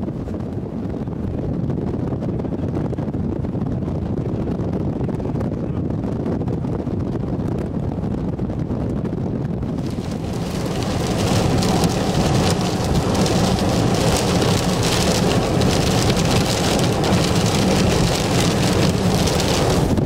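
Thunderstorm wind giving a steady low rumble, then about halfway through heavy rain sets in suddenly and pelts the vehicle, much louder to the end.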